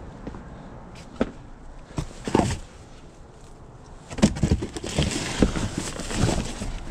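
Household items being rummaged through and moved: a few separate knocks, then from about four seconds in a busy stretch of rustling with many small bumps.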